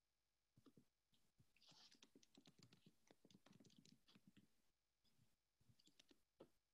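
Faint rapid clicking and tapping, like keyboard typing, over near silence. The clicks run thickly for the first few seconds, pause, and come again briefly near the end.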